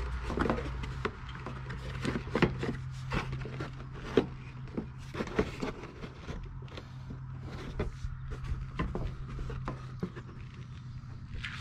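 A hard plastic ATV footrest knocking and scraping against the quad's metal frame as it is held up and shifted into place: irregular clicks and knocks, over a steady low hum.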